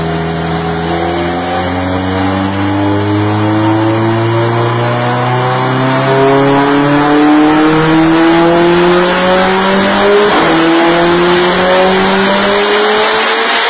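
Car engine in a full-throttle pull on a chassis dynamometer, its note climbing steadily as the revs rise, with a brief break about ten seconds in. Near the end the engine note gives way to a rough, noisy rush.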